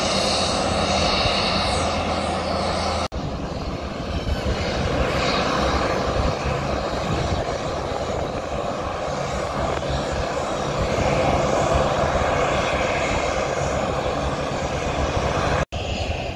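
Steady drone of light aircraft engines running, with a low hum early on. The sound drops out for an instant twice, about three seconds in and near the end.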